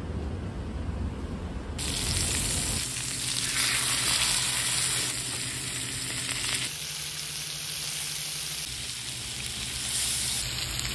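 Pork belly strips and garlic cloves sizzling on a griddle pan, the frying hiss starting about two seconds in.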